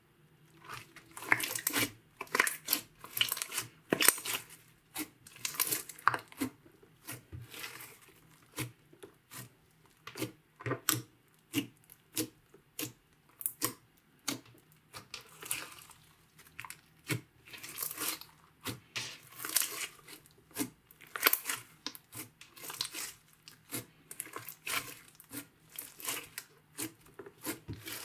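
Hands poking, kneading and stretching a thick green slime with small beads in it, making irregular wet crackles, pops and squishes, several a second, starting about a second in.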